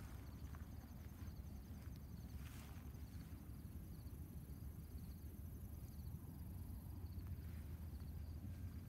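Insects chirping in a steady series of short, high pulses over a low, steady rumble.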